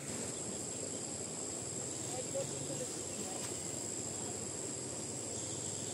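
Outdoor ambience: insects trilling on one constant high note over a steady rushing background, with faint voices.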